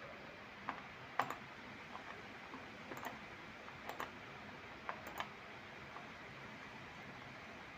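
Scattered clicks from working a computer's mouse and keys, about seven over several seconds, over a faint steady room hiss.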